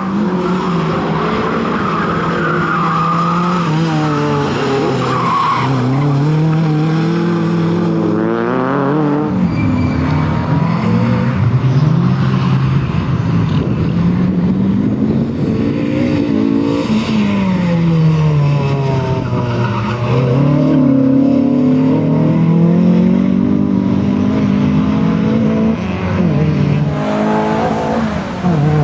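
Renault Clio II hatchback driven hard on a tarmac course: the engine revs up and drops back again and again through acceleration, gear changes and braking for the corners, with the tyres squealing at times.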